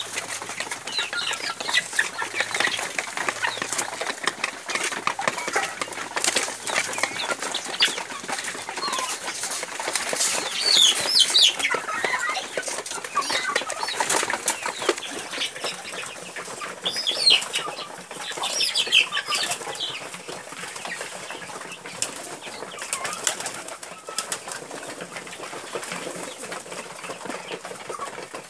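A flock of kienyeji chickens and pigeons feeding: a constant patter of sharp pecking and scratching clicks and wing flaps, with short high chirps now and then. It is loudest about a third of the way in and again a little past halfway.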